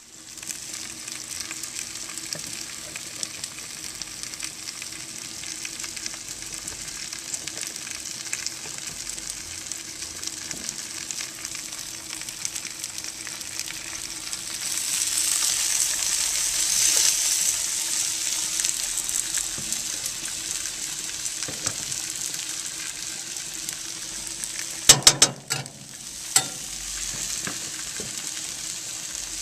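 Sliced onions sizzling in a hot cast iron skillet on a grill: a steady frying hiss that grows louder about halfway through. A few sharp clicks near the end.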